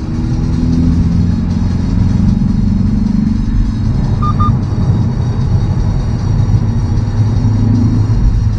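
Hyundai Veloster N's turbocharged four-cylinder engine droning at a steady cruise with tyre and road noise, heard inside the cabin. Two short electronic beeps sound about four seconds in.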